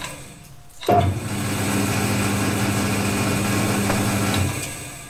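Electric motor of a freshly rewired old machine tool switched on with a click about a second in. It runs with a steady mains hum, then is switched off and winds down near the end.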